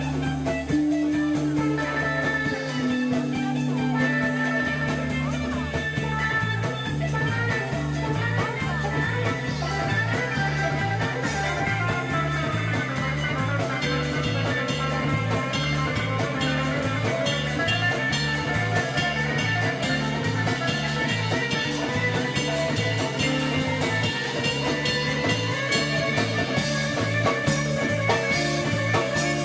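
A band playing an instrumental rock jam: guitar lines over a steady, repeating bass line that sets in a few seconds in.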